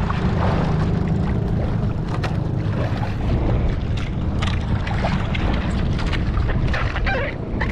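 Small fishing boat's engine running steadily, with wind buffeting the microphone.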